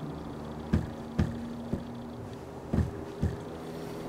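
About five soft, low thumps at uneven intervals over a steady low hum.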